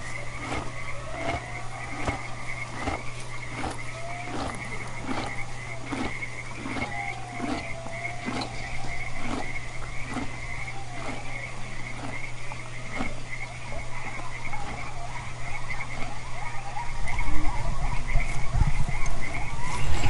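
Outdoor chorus of animal calls: a short call repeating about three times every two seconds over a steady high-pitched pulsing chorus, with a few wavering calls mixed in. A low rumble grows louder near the end.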